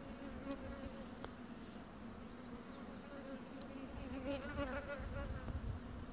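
Yellow-faced bumblebee (Bombus vosnesenskii) queen buzzing, a steady low hum with a fainter overtone above it.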